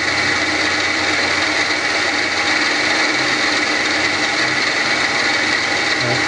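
Small milling machine running steadily, its spindle and motor giving a constant whine, set up for step-by-step milling of a miniature camshaft's lobes from W-1 drill rod.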